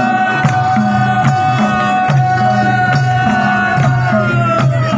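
Nepali Sorathi folk music: madal hand drums play a steady repeating beat while a singer holds one long high note that dips slightly near the end.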